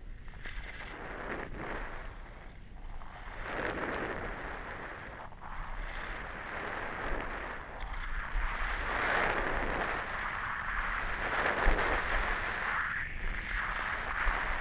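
Skis hissing and scraping over packed snow on a downhill run, swelling and fading every second or two, with wind rumbling on the microphone.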